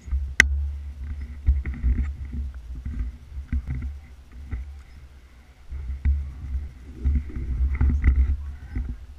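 Footsteps on a forest trail with the rubbing and jostling of gear against the camera mount: irregular dull thumps and low rumbling, with a few sharp clicks.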